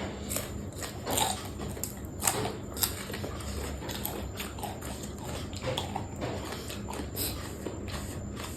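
A person eating close to the microphone: irregular chewing and mouth clicks with short crunches, over a low steady hum.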